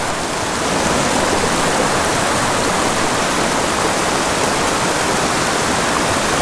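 Rushing water of a small mountain creek tumbling over rocks in riffles and small cascades: a steady rush that rises a little in the first second, then holds even.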